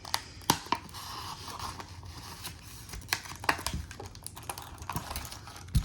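Irregular small clicks and taps of metal keys and padlocks being handled and set down, with a faint rustle about a second in.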